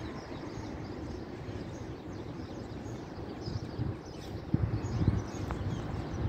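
Outdoor ambience: steady background noise with faint bird chirps, and some low rumbling swells in the second half.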